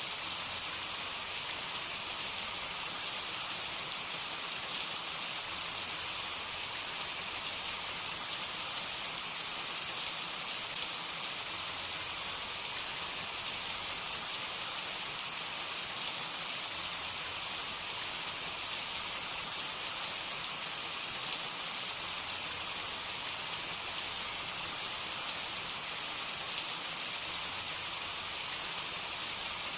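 Hot cooking oil sizzling steadily with small scattered crackles as food fries.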